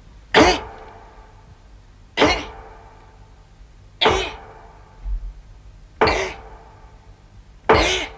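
An axe chopping into a tree trunk: five sharp strikes about two seconds apart, each with a short dipping ring after it.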